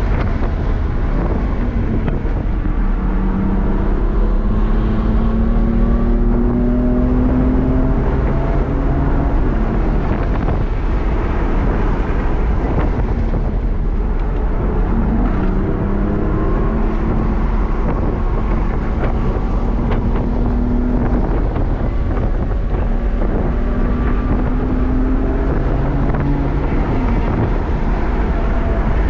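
BMW M4 Competition's twin-turbo inline-six heard from inside the cabin under hard acceleration, its pitch climbing three times as it pulls out of corners, over steady low road and wind noise.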